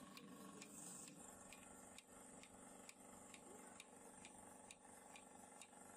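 Near silence: a portable bucket milking machine running faintly, its pulsator clicking evenly about three times a second over a low steady hum from the vacuum pump.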